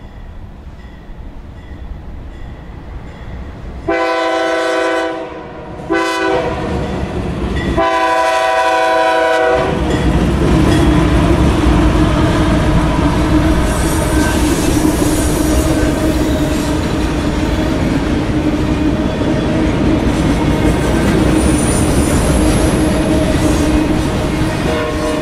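CSX freight train sounding its horn for the grade crossing: a long blast, a short one and a final long one. The diesel locomotive then passes close by, a steady loud rumble of engine and wheels on rail, followed by rolling autorack cars.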